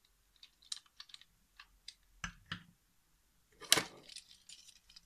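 Hard plastic toy figures clicking and tapping as they are handled, with one sharper knock about three and a half seconds in as a figure is set down on a wooden shelf.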